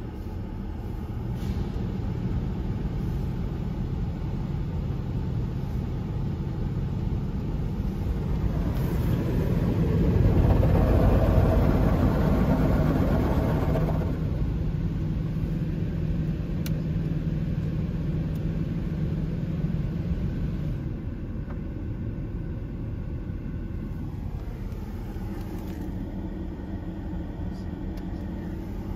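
Mark VII car wash spraying water and soap over a car, heard from inside the cabin: a steady rush that swells louder about ten seconds in. After that a steady low hum holds for several seconds, and the wash then eases.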